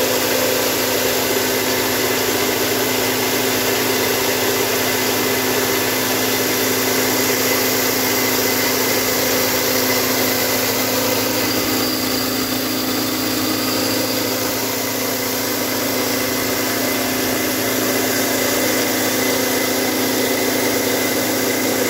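3 HP mini rice mill running steadily while milling rice, its electric motor giving a constant hum over the even hiss and rattle of grain passing through the huller and out of the chute.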